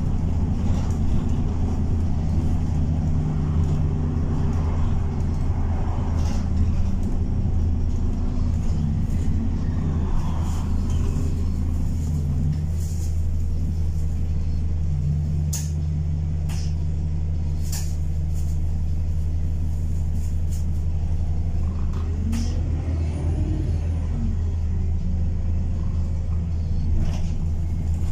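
London single-deck bus heard from inside the passenger saloon while under way: a steady deep engine and road hum with occasional clicks and rattles. The engine note rises and falls briefly about 23 seconds in.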